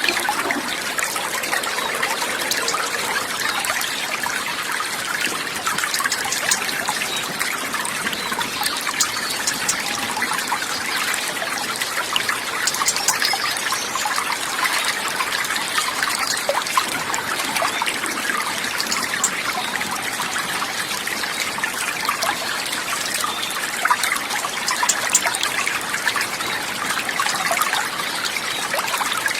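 Running water trickling steadily, a continuous babble of many small splashes at an even level.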